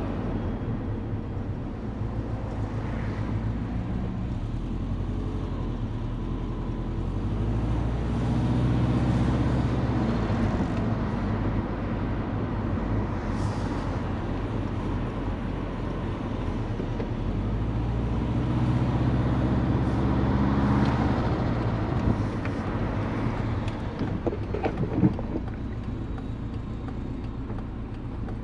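Big-turbo Subaru EJ20 flat-four in a Forester running on the road, its engine note swelling in two louder stretches with pitch steps between, over steady road noise. A brief sharp noise comes near the end.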